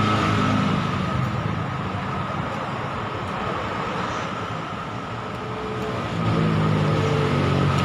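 Motor vehicle engine hum, fading through the middle and building again about six seconds in, over a steady high-pitched tone.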